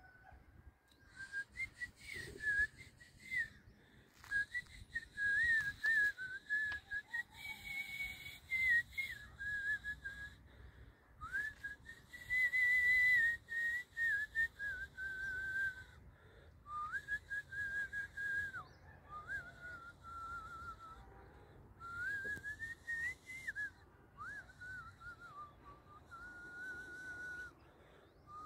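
A person whistling a tune: long held notes with slides up and down between them.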